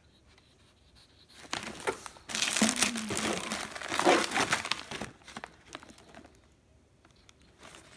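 Plastic cat-treat pouches crinkling as they are handled and lifted out of a box. The crinkling is loudest from about a second and a half in to about five seconds in, then dies down to a few small rustles.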